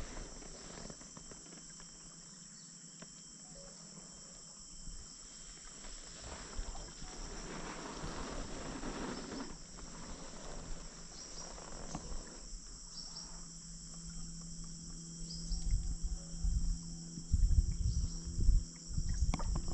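Insects buzzing in a steady, high, even drone, with a few low thumps and rumbles in the last few seconds.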